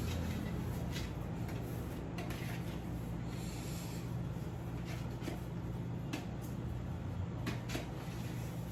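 Scattered light knocks and clatter, a handful of separate taps, over a steady low hum.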